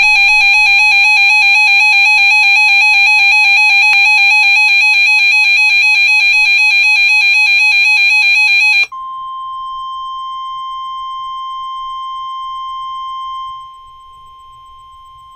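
Weather radio alert tones. First a loud, warbling alarm tone sounds for about nine seconds and cuts off. Then the steady 1050 Hz NOAA Weather Radio warning alarm tone begins, and it drops in level a few seconds before the end, announcing a flash flood warning.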